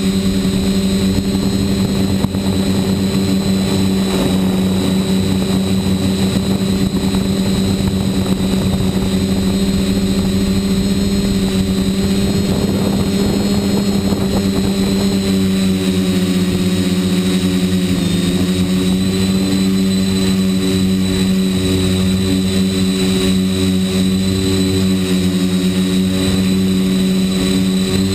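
RC quadcopter's electric motors and propellers heard from the GoPro mounted on it: a loud, steady hum with a high whine. The pitch dips briefly about eighteen seconds in as the throttle changes.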